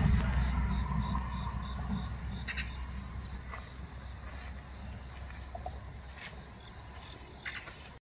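Insects trilling and chirping in the field: a steady high thin trill with faint regular chirps, over a low rumble that dies steadily away, and a few faint clicks.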